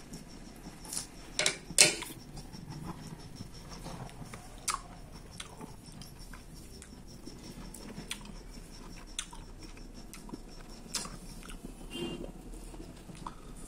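A person chewing and eating pieces of peeled fruit, with scattered soft mouth clicks and a couple of louder sharp clicks between about one and two seconds in.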